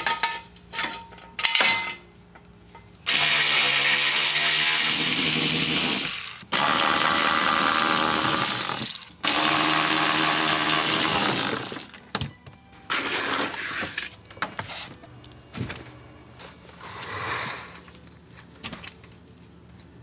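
12V cordless electric ratchet spinning out undertray bolts in three runs of about three seconds each, with short clicks and knocks of handled parts before and after.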